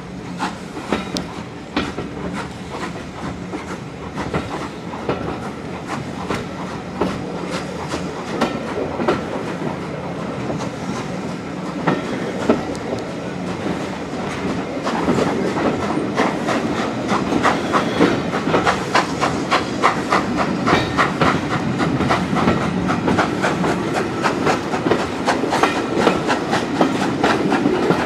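Steam-hauled heritage train running, heard from an open carriage window: a steady rumble with rapid clicking of the wheels over the rail joints, growing louder as the train gathers speed.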